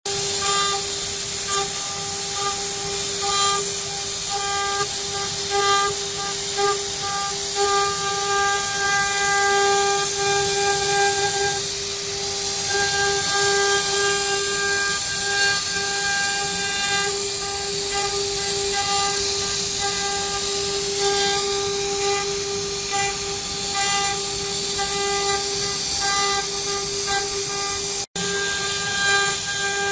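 CNC router spindle cutting aluminium: a steady high-pitched whine over a constant hiss. The sound cuts out for an instant near the end.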